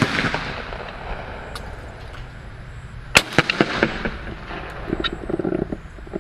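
A 12-gauge Browning Citori over-and-under shotgun fires right at the start, its report echoing away over about a second, then fires again about three seconds in. A few short mechanical clicks and knocks follow near the end.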